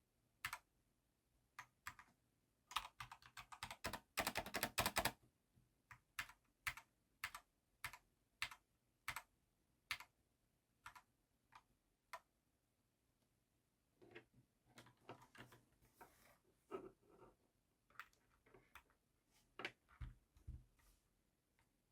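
Typing on a GamePower Eva 7 wireless mechanical keyboard with red (linear) switches. Single key presses come at an even pace, with a quick run of keystrokes about three to five seconds in and softer, duller presses in the second half.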